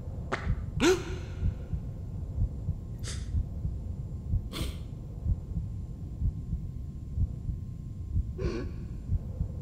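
Animation sound design: a low, uneven rumbling bed with five short hissy swishes, two close together about half a second in, then single ones around three, four and a half and eight and a half seconds in.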